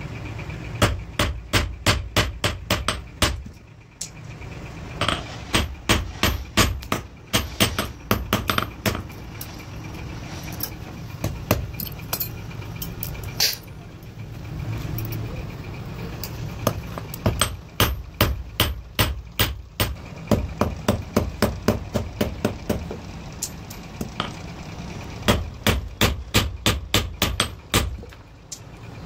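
Hand hammer striking a steel pliers blank on a small iron block anvil, in runs of sharp metallic blows about three to four a second with short pauses between the runs. A steady low hum runs underneath.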